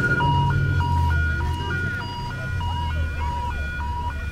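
An electronic two-tone warning signal, alternating steadily between a lower and a higher beep about one and a half cycles a second, over a continuous low rumble.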